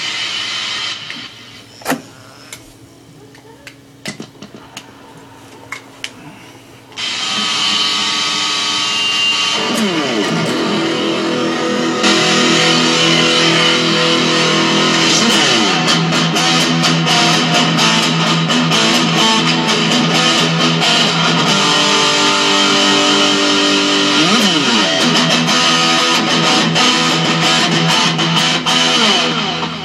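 Electric guitar played through a Boss DS-1 distortion pedal into a Marshall MG15 DFX practice amp: after a few seconds of clicks and amp hum, loud distorted 80s-metal riffs and licks with sliding notes, getting louder about twelve seconds in.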